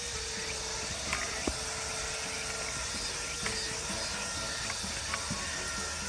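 Steady outdoor background hiss, with a few faint clicks and short faint tones.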